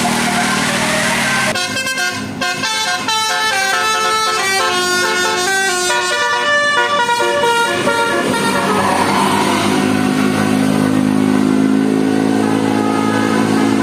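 Bus telolet Basuri multi-tone air horn playing a quick melody of short stepped notes over a running bus engine, then holding long steady tones for the last several seconds.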